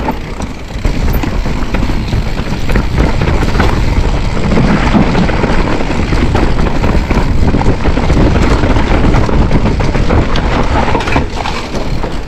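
A car being driven hard: loud, continuous engine and road noise with rumbling down low.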